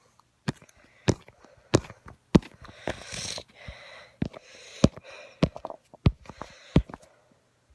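A string of sharp clicks or taps, roughly one every half second to second, with puffs of breathy noise between them.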